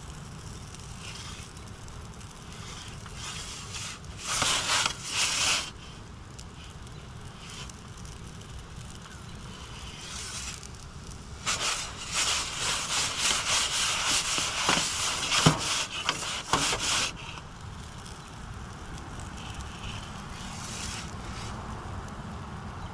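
Metal pizza peels scraping and clicking against the floor of an Expert Grill 15-inch charcoal pizza oven as the pizza is turned and then slid out. There is a short scrape about four seconds in, then a longer run of scraping and sharp clicks from about eleven to seventeen seconds, all over a steady low rumble.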